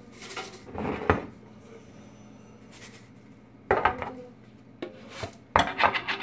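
A metal tea tin being handled: its lid scrapes and clicks about a second in, the tin knocks down on the countertop, and near the end comes a quick run of rattling clicks as the lid is worked off.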